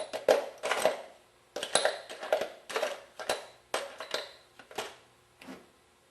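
Small loose metal parts clinking and rattling in a metal parts can as it is rummaged through, a quick irregular string of sharp ringing clinks that stops about five and a half seconds in.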